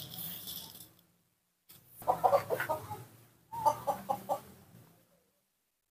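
Animal calls in two short series of rapid clucking pulses, after a brief rustling noise at the start.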